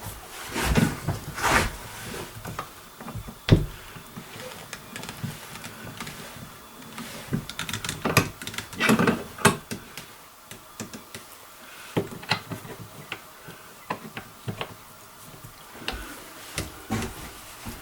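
Scattered clicks, knocks and scraping of a flintlock muzzleloading rifle's metal and wooden parts being handled as it is taken apart, with a few longer rustling bursts about a second in and again near the middle.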